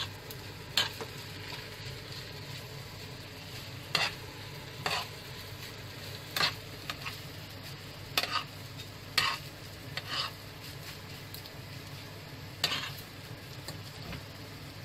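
Flaked fish sisig sautéing in a pan, sizzling steadily, while a fork stirs it and scrapes and clinks against the pan about eight times at irregular intervals.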